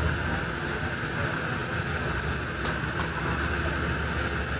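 Steady background din with a low hum, no single clear sound standing out.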